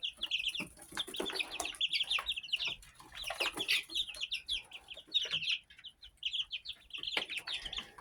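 A flock of young chickens peeping, with dense runs of short, high, falling notes from several birds at once. A few soft knocks come through among the calls.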